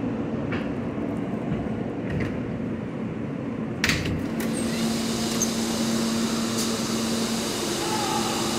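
R160 subway car standing in a station with its air-conditioning running as a steady hum; about four seconds in the doors slide open with a sharp clunk and the platform's noise comes in.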